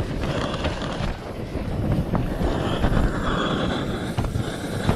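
Wind buffeting the microphone in a heavy, uneven low rumble, with a few light clicks.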